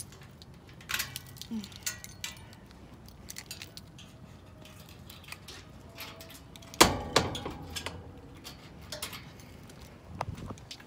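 Handling noise: scattered light clicks and rattles, like keys and small objects being moved about, with one louder knock and rattle about seven seconds in.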